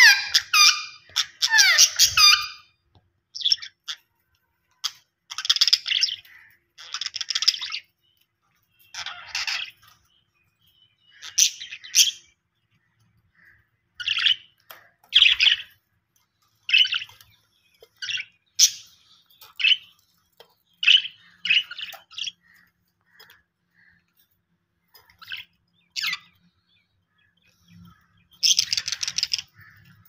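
Budgerigars chirping and warbling in short, high-pitched bursts with brief gaps between, busiest in the first couple of seconds and again near the end.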